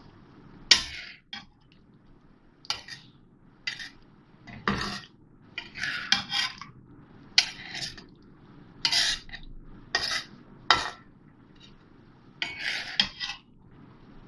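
Spatula stirring chicken in thick creamy gravy in a karahi, scraping and clinking against the pan in repeated strokes about once a second.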